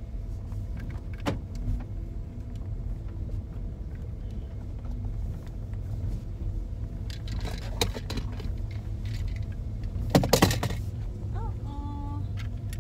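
Steady low road and engine rumble inside a moving car's cabin, heard from the back seat, with a few short rattles and knocks; the loudest come about ten seconds in.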